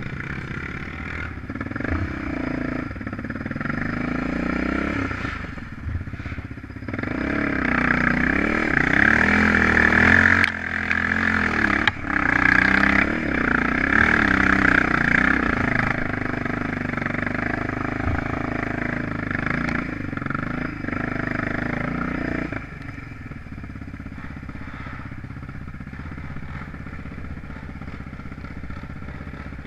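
An off-road vehicle's engine revving and labouring, its pitch rising and falling over and over, loudest in the middle stretch. About two-thirds of the way through it drops to a quieter, steadier run.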